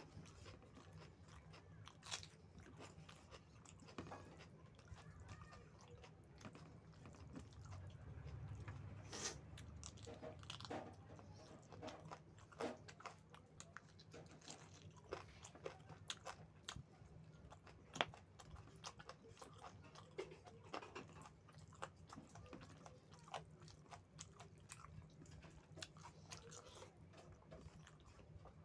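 Close-miked mouth sounds of someone eating rice with chicken curry: irregular wet clicks of chewing and biting, with occasional crunches. A faint steady low hum runs underneath.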